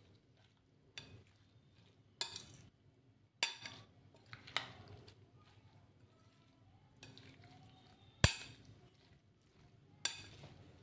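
Steel spoon stirring a thick grated-potato and egg batter in a bowl, clinking against the bowl's side about seven times at uneven intervals, the loudest clink about eight seconds in.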